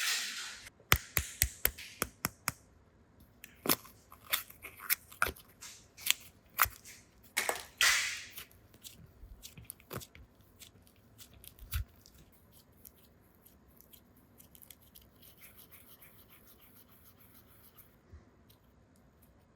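Small plastic toys and their packaging being handled: a quick run of sharp clicks, taps and crinkling rustles that thins out to scattered faint ticks after about ten seconds.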